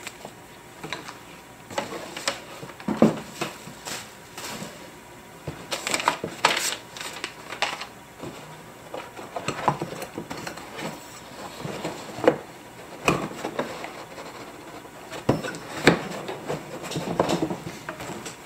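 Handling noise from unpacking a cardboard box with a moulded pulp insert: irregular knocks, scrapes and rustles as the metal detector's shaft sections are worked loose from the tray.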